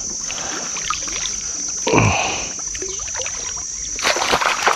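A small boat being paddled along a river: paddle strokes and water sloshing, with a louder stroke about two seconds in and a run of splashes and knocks near the end.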